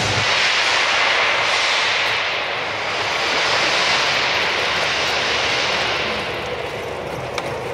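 Rebar end-threading machine's spinning die head cutting a thread onto a steel rebar end, with coolant spraying off the head: a steady, high, hissing machine noise that eases off near the end.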